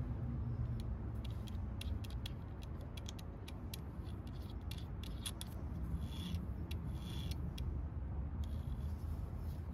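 Irregular small metallic clicks and brief scrapes from the keyed chuck of a vintage Craftsman electric drill, model 315.7721, being turned by hand, over a steady low rumble.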